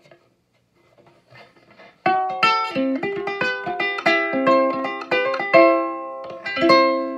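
Four-string cigar-box ukulele: faint handling for about two seconds, then a run of bright picked notes and strummed chords starts suddenly, ending on a chord left to ring.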